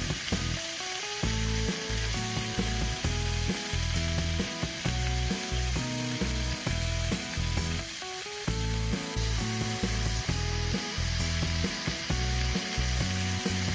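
Ground pork sizzling steadily in a frying pan as a thick sauce is poured and scraped in, with background music.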